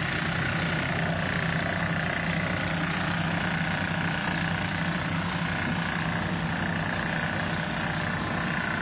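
Engine running steadily, a constant low hum with a broad noisy wash over it.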